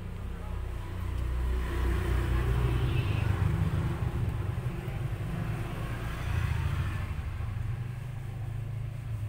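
A low rumble that swells twice, about two seconds in and again around six seconds.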